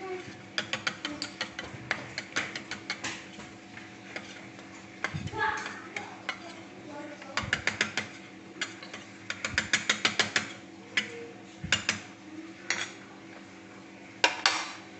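A metal utensil clinking rapidly against cookware in several bursts of stirring, over a steady low hum.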